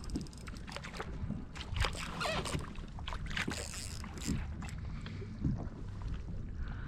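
Water lapping and sloshing against a kayak's hull, with scattered light clicks and knocks.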